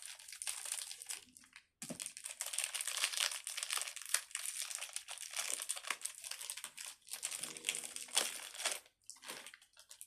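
Crinkly plastic packaging of small fidget toys being handled and opened, crackling almost continuously with a short pause about a second and a half in.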